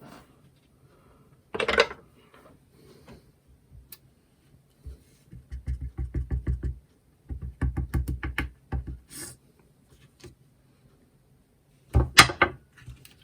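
Rubber stamp being tapped rapidly on an ink pad in two runs, with sharper knocks of a stamp block on the desk about two seconds in and near the end.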